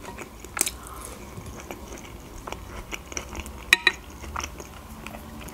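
Chewing of a meat cutlet topped with mashed potato, with a few soft clicks. About three and a half seconds in comes one sharp, briefly ringing clink of a metal fork set down on the plate.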